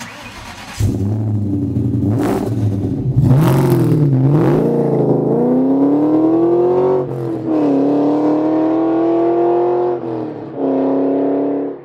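Car engine starting on the key, blipped a few times, then accelerating hard, its pitch climbing through the gears with two shifts before holding steady near the end.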